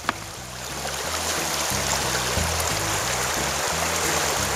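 Rushing river water, a steady hiss that swells about a second in, over background music with a low stepping bass line. A single short click just after the start.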